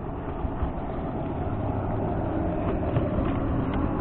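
Steady low engine drone that slowly grows louder.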